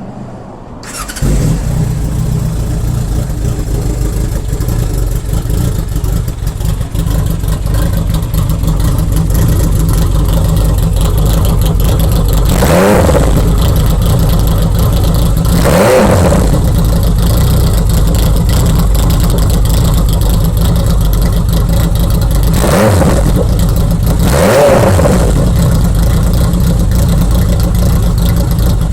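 Kawasaki Zephyr 1100's air-cooled inline-four engine, breathing through a straight-pipe silencer, catches and starts about a second in, then idles loudly. The throttle is blipped four times, each rev rising and falling quickly.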